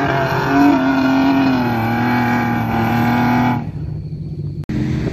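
A 4x4 trials buggy's engine revving hard, held high and near steady with small wavers as it works through mud, then the revs drop suddenly about three and a half seconds in, leaving a lower engine sound.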